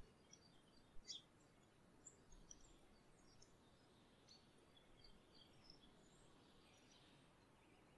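Faint, scattered short high chirps of small birds over quiet background noise, with a brief click about a second in.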